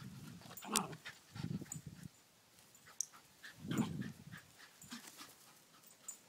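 Lakeland Terrier at play, giving a few short huffs and yips. There are three irregular bursts, the loudest about a second in and near four seconds.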